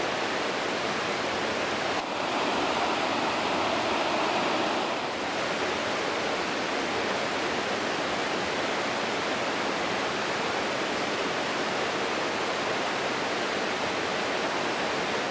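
Mountain creek water rushing steadily over rocks, a little louder for a few seconds about two seconds in.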